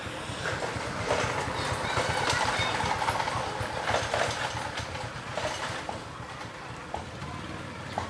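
A vehicle passing by, rattling and clattering as it swells up over the first few seconds and then fades away.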